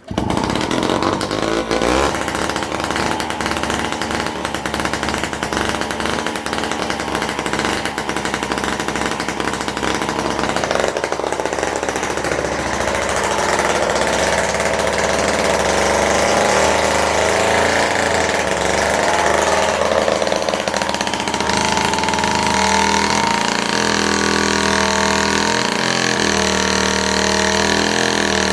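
Danarm Tornado vintage chainsaw's Villiers two-stroke engine comes in suddenly and runs loudly, rough and uneven at first, then settles into steadier, slightly hunting running about twenty seconds in.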